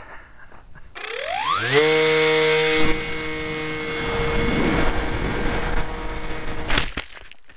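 Small electric RC airplane motor and pusher propeller spooling up to full throttle with a rising whine, then holding a steady high whine at full power. It cuts off abruptly near the end with a couple of sharp knocks as the plane hits the ground.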